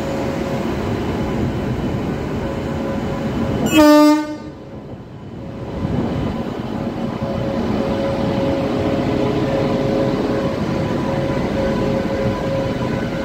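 Indian Railways WAP-7 electric locomotive moving off slowly, with a steady hum and whine from its electrics and running gear. About four seconds in, its horn gives one short, loud blast.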